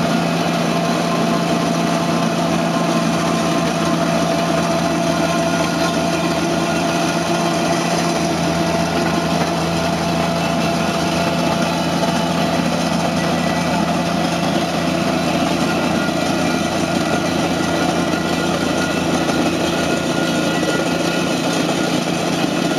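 Toro Dingo compact utility loader's engine running steadily at constant speed under load, while the rotating drum of its Harley power rake churns through loose driveway gravel.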